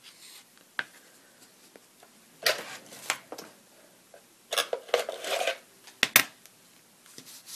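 Hands wrapping red-and-white twine around a small paper card: two short rustles of string and card, one a little before halfway and one a little after, and a couple of sharp little clicks near the end.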